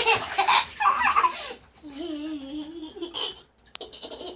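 A person laughing in choppy bursts for about the first second, then a drawn-out wavering vocal sound lasting about a second.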